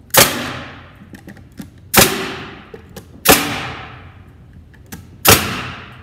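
Pneumatic framing nailer firing nails through plywood into a wooden frame: four sharp shots at uneven intervals of one and a half to two seconds, each fading away over most of a second, with small clicks between as the nailer is moved and set.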